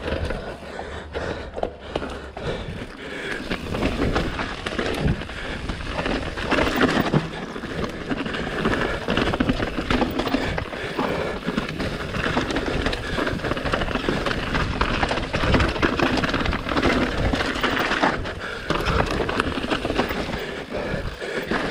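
Mountain bike rolling over a rough trail, a steady rough noise that rises and falls.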